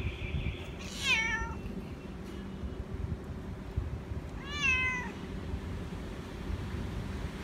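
Cat meowing twice, two short calls about three and a half seconds apart, each dropping in pitch at the end.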